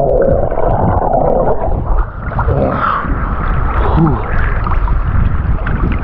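Sea water sloshing and gurgling close against the microphone, with a heavy low rumble and a brief muffled tone about four seconds in.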